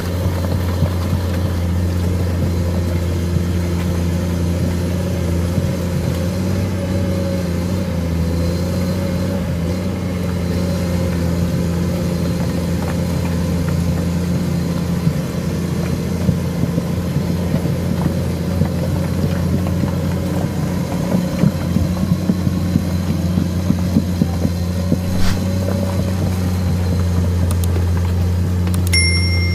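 Komatsu PC210 excavator's diesel engine running steadily under load as it tracks through thick mud towing a loaded steel sled. Scattered knocks and clicks come in the second half, and a brief high ding sounds near the end.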